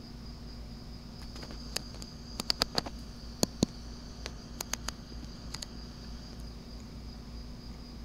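Night insects, crickets, chirping in a steady high-pitched chorus. A scattering of sharp clicks and ticks comes between about two and six seconds in.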